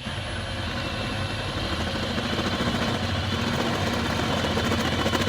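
Electric drill starting suddenly and running steadily, boring into the steel steering-wheel mounting plate with a worn drill bit.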